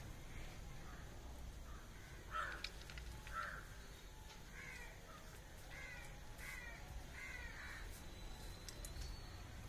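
Crows cawing in the distance, faint: two calls a little past two seconds in, then a quicker run of caws from about four and a half seconds on.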